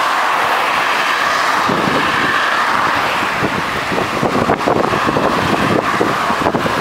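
Steady road-traffic noise from cars passing on a busy avenue. From about two seconds in, wind buffets the microphone of the moving bicycle in uneven gusts.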